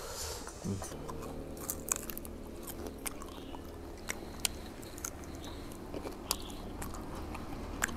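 A person biting and chewing crispy salt-fried chicken wings, giving scattered short crunches and clicks over a steady low hum.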